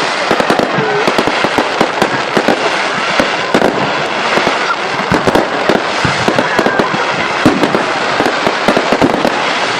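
A fireworks display going off in a rapid, continuous barrage of bangs and crackles, many reports overlapping with no pauses.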